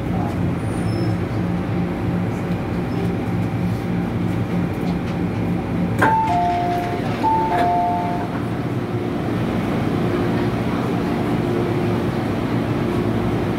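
MTR M-Train carriage coming to a stop at a station, with a steady low hum under the running noise. About six seconds in there is a click, then the door chime plays a two-tone descending ding-dong twice as the doors are released to open.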